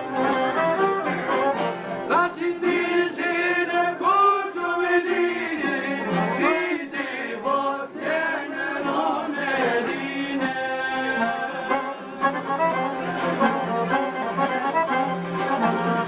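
Men singing an Albanian folk song, accompanied by strummed long-necked lutes (çifteli) and an accordion. The voices come in about two seconds in and carry the melody until about ten seconds in, with the instruments playing on underneath.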